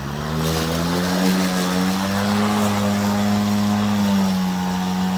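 Hart 40-volt brushless battery push mower starting up: the motor and blade spin up with a hum that rises in pitch over about the first second, then run at a steady pitch.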